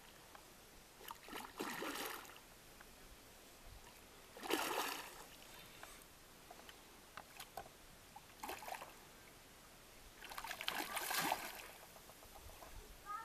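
A hooked carp splashing and thrashing at the surface close to the bank as it is played in: four bouts of splashing, the loudest about four and a half seconds in and a longer one around ten to eleven seconds in.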